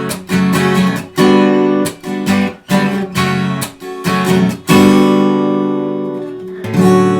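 Acoustic guitar strummed in chords in a small room treated with acoustic foam panels. After a run of quick strums, a chord is left to ring and fade, and one more chord is struck near the end.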